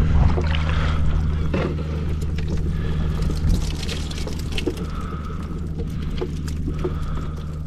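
Water splashing and trickling as freshly netted whitebait are tipped from a scoop into a bucket of water, over a steady low rumble.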